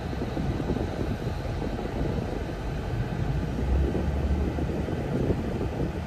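Nissan Fairlady Z (Z34) driving: a steady low rumble of engine and road noise.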